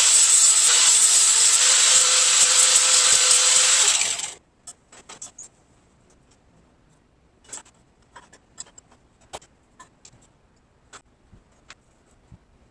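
A power tool running on metal, a steady loud hiss with a high whine, stops abruptly about four seconds in. After that only scattered light clicks and taps are heard.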